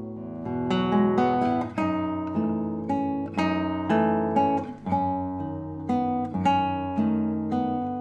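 Solo nylon-string classical guitar played fingerstyle: plucked notes ringing over one another above sustained bass notes. After a brief lull at the start, new notes come in about half a second in and continue at an easy pace.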